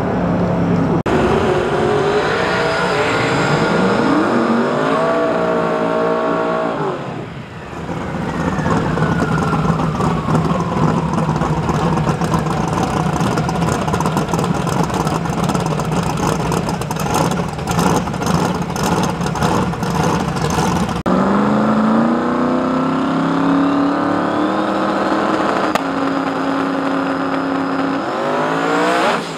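Drag racing car engines at high revs. Pitch climbs in steps as a car accelerates, then comes a long spell of engine noise with a falling whine and crackling. Near the end an engine revs up and holds at a steady high pitch.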